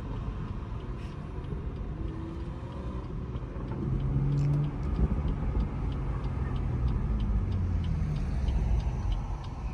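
BMW M340i's turbocharged 3.0-litre straight-six, fitted with an aftermarket intake, heard from outside the car as it accelerates. It starts as a low rumble and gets louder with a rising engine note about four seconds in.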